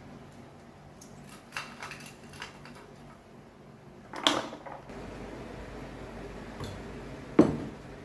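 Scattered light clicks and knocks of objects being handled, with two louder knocks about four and seven and a half seconds in, over a faint low hum.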